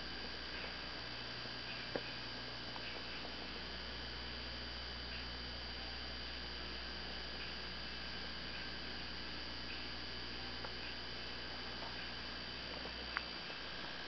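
Steady low electrical mains hum with hiss and a faint high whine, with two faint clicks, one about two seconds in and one near the end; the low hum drops away just before the end.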